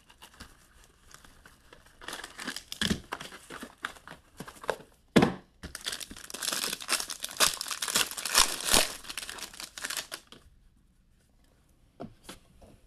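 Plastic wrapping on sealed hockey trading-card packaging being torn open and crinkled, with one sharp click about five seconds in. The crinkling stops about ten seconds in, and a couple of faint clicks follow.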